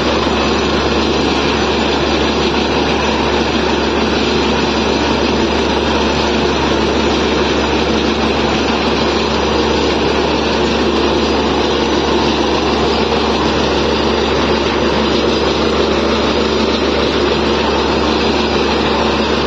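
Borewell drilling rig running steadily at full power, its engine and air compressor blowing water and cuttings up out of the borehole: the bore has struck water.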